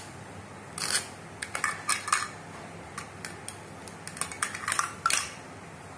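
A plastic toy knife and toy vegetables clattering on a plastic cutting board: scattered clicks and clacks in three clusters, with a few short rasps as the knife cuts through the toy vegetable halves.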